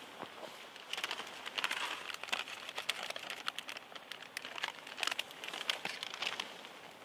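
Plastic instant-ramen packet crinkling in quick, irregular bursts as it is shaken out over the pan, adding seasoning to the boiling noodles.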